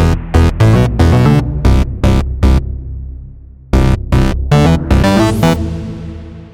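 Electronic music sting: two runs of heavy synth-and-drum hits, each about a third of a second apart, with a rising sweep near the end. A last held chord then fades away.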